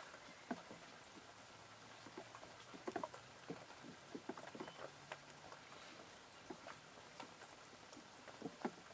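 Rain dripping: scattered, irregular light taps of drops.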